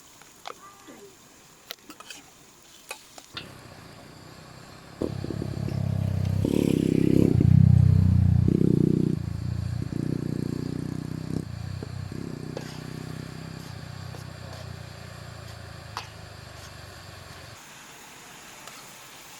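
A motor engine passing close by: a low drone starts a few seconds in, swells to its loudest near the middle and fades away before the end. A few light clicks and clatter come before it.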